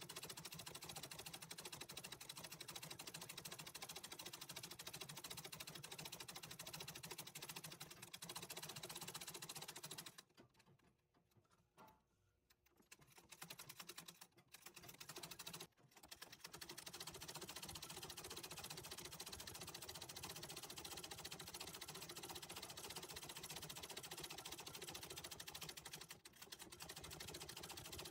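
Antique treadle sewing machine stitching fast and steadily during free-motion embroidery. It stops for a few seconds just before the middle, starts and stops briefly, then runs on with another short slowdown near the end.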